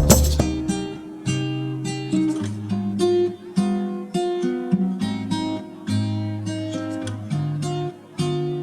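Background music: strummed and picked guitar chords, each struck note ringing and fading. It begins on the dying tail of a loud hit.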